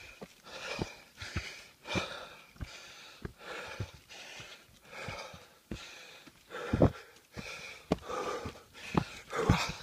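A hiker breathing hard and rhythmically while climbing uphill, quick panting breaths in and out about every half second, with dull footstep thumps in between.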